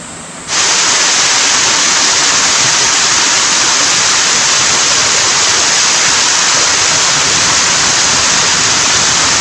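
Mountain stream rushing, a loud, steady wash of water that cuts in abruptly about half a second in.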